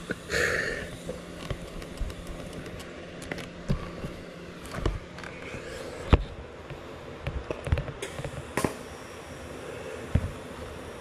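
TIG welding arc on a pipe butt weld: a steady low hiss with scattered sharp clicks and crackles.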